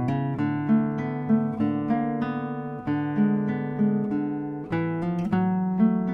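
Solo acoustic guitar playing plucked notes and chords that ring on into each other, a new note or chord about every half second. It is recorded through a ribbon microphone paired with a small condenser microphone.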